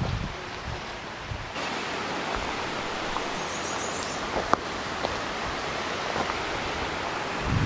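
Shallow rocky mountain stream rushing over stones, a steady hiss of water that comes up suddenly about a second and a half in.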